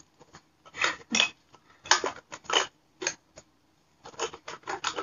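Cosmetics being handled and put into a clear plastic makeup pouch: a run of irregular short rustles, rubs and light knocks of plastic containers against the bag and each other.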